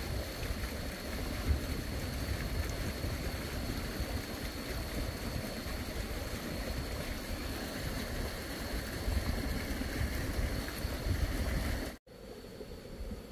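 Steady rushing noise with wind buffeting the microphone in uneven low rumbles. About twelve seconds in it cuts off abruptly and gives way to a quieter, steadier hum.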